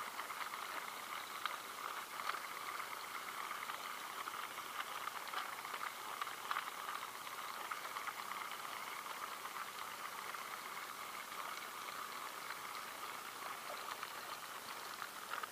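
Water lapping and fizzing around the pier: a steady, soft bubbling hiss flecked with small crackles.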